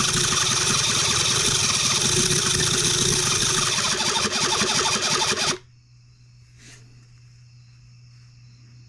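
Electric starter cranking a Cison L4-175 model four-cylinder flathead engine with a fast, even pulsing, cutting off abruptly about five and a half seconds in when the button is released; the engine does not start.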